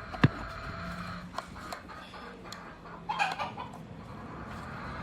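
A chicken clucks once, a short squawking call about three seconds in. A sharp click comes near the start.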